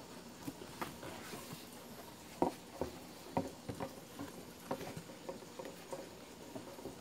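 Cardboard box being opened and its packed contents handled: scattered light rustling and tapping of cardboard and packaging, with a few sharper clicks about two and a half, three and a half and nearly five seconds in.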